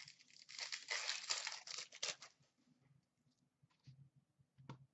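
Foil wrapper of an Upper Deck Series 2 hockey card pack being torn open, a crackling tear lasting about two seconds. A few faint ticks and a sharp click follow near the end.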